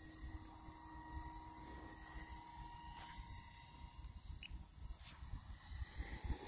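Radio-controlled model F-104 Starfighter's motor running at full throttle in flight, heard as a faint, steady whine, with wind rumbling on the microphone.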